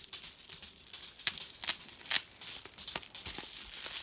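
Packing material crinkling and rustling as it is handled and pulled open by hand, with a few sharp crackles.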